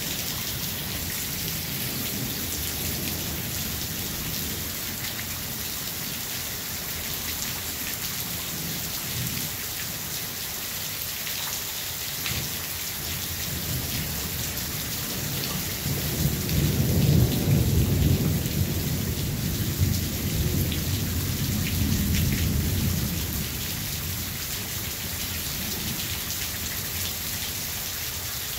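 Steady rain hissing through a thunderstorm. About halfway through, a long, low roll of thunder swells, peaks a couple of seconds later and rumbles away over several seconds.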